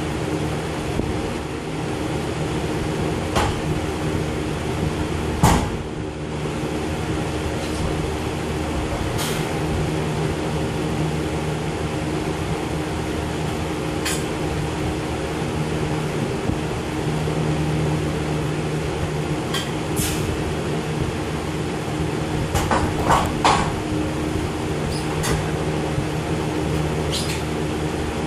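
Steady mechanical hum with a few level tones in it, broken by scattered sharp clicks and knocks; the loudest knock comes about five seconds in, and a short run of them comes near the end.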